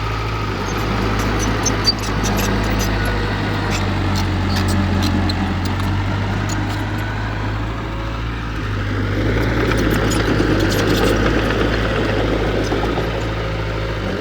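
Heavy diesel engine of earthmoving equipment running steadily, with light clicking over it and a short sharp knock about two seconds in.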